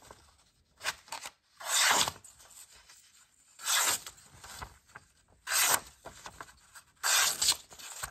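A cleaver-style knife blade slicing through sheets of paper: about six short, rasping swishes at irregular intervals.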